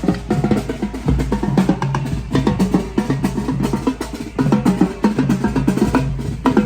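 A percussion ensemble playing drums: a fast, dense rhythm of snare and bass-drum strokes over repeated low pitched notes.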